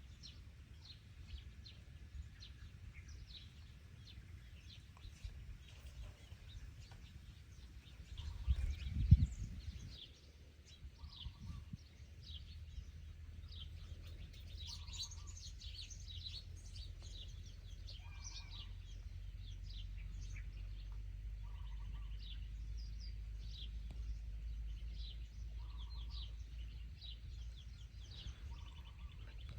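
Small birds chirping in quick, scattered calls over a steady low hum. About eight to ten seconds in comes a low thump and rumble, the loudest moment. From then on a short soft tone repeats every three to four seconds.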